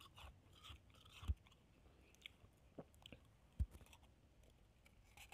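Close-up chewing of packed shaved ice made from a frozen water bottle: soft, scattered crunches with two stronger low thuds, one a little over a second in and one just past halfway.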